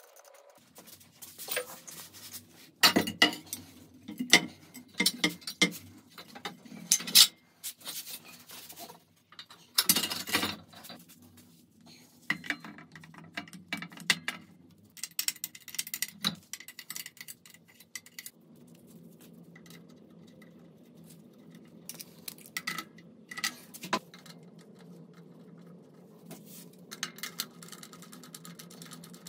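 Metal tools and engine parts clinking and knocking against each other in irregular bursts, over a faint steady hum.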